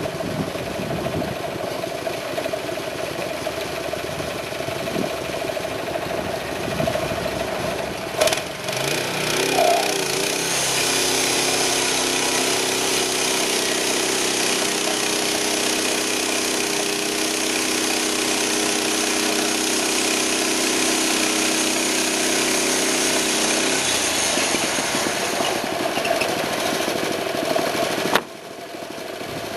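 6.5 HP Honda GX engine of a portable band sawmill running. About ten seconds in the sound grows louder with a steady pitched tone and more hiss, which ends at about 24 seconds; the sound drops abruptly for a moment near the end.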